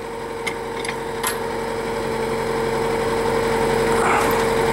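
Drill rig's engine running steadily with a constant hum, growing gradually louder, with a couple of faint metallic clicks early on.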